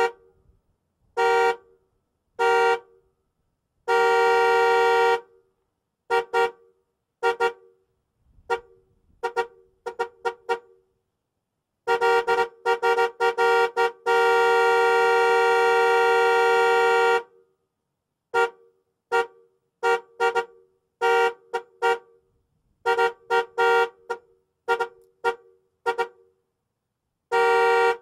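Car horn honking in a run of short toots and several long blasts, the longest held about five seconds. Each honk stops sharply into silence.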